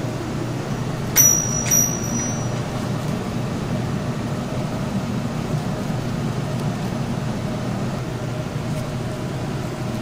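Two sharp, ringing metallic clinks about half a second apart, a little over a second in, over a steady low hum of kitchen machinery.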